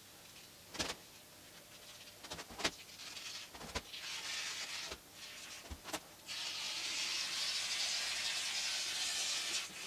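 Spray foam gun hissing as foam is dispensed: a short spray, then a longer steady spray lasting about three seconds near the end, with a few sharp knocks and clicks before it.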